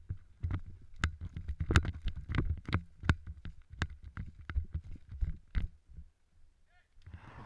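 Footsteps over a forest floor of pine needles and dead leaves, about two a second, heard close up from a body-worn action camera.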